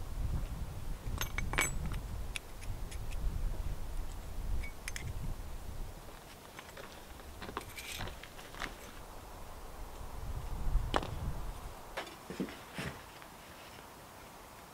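Short flat steel bars (stainless printer rod and garage-door spring steel) clinking against each other as they are stacked by hand into a bundle, in scattered light taps and clicks. A low rumble underneath fades after the first several seconds.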